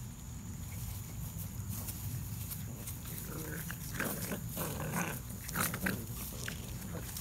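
Puppies growling during play-fighting, in short bursts mostly between about three and six seconds in.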